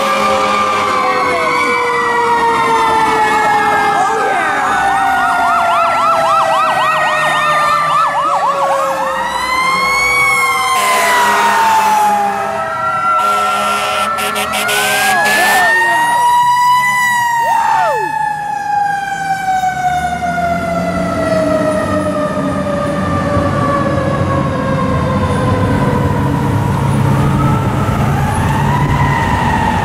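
Fire truck sirens on several responding apparatus: long wails that sweep up and slowly fall away, with a fast yelping siren overlapping through the first third. The low rumble of the trucks' diesel engines grows in the last third as the apparatus pass.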